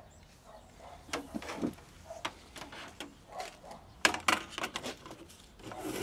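Scattered light clicks and knocks of handling, with a quick cluster of them about four seconds in.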